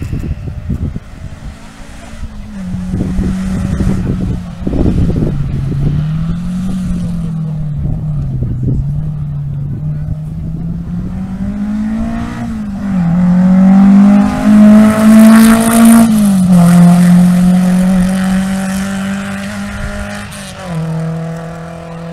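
Historic rally car's engine driven hard, revs rising and falling, then pulling up through the gears as it passes close by, loudest a little past the middle. Its pitch drops at each upshift, and it fades as it pulls away.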